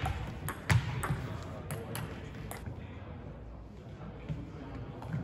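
Table tennis rally: the celluloid-type ball clicks sharply off the rubber bats and the table about every half second for the first two and a half seconds. The point then ends and the hall falls quieter.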